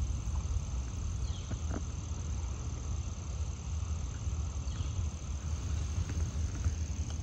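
Outdoor ambience: a steady high insect trill over a low rumble on the microphone, with a few faint short chirps.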